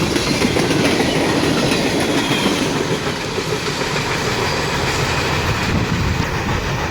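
Freight train cars rolling past at speed, a steady loud rush with wheels clicking over the rail joints.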